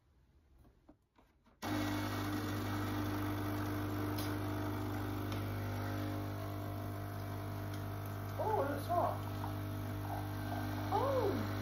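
Nescafé Dolce Gusto capsule coffee machine starting up suddenly about two seconds in, its pump running with a steady electric hum as it brews.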